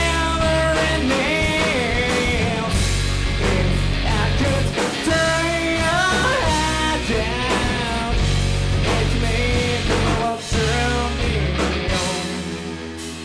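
Rock band playing live: drums, bass and electric guitar under a melody line that bends in pitch. Near the end the bass and drums drop out and the music thins.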